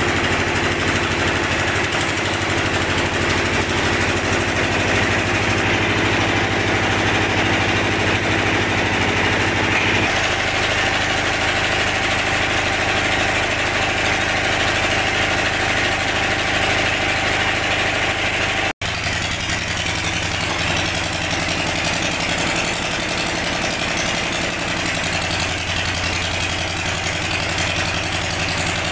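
Engine of a water-well boring rig running steadily, powering the hydraulic drill as it bores the well. The sound cuts out for an instant a little under two-thirds of the way through.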